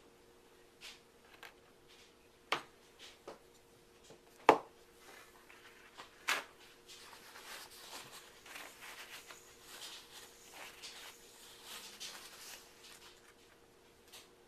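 Bars of soap being handled and set down on a hard surface: a few sharp knocks, the loudest about four and a half seconds in, then several seconds of soft rustling handling noise.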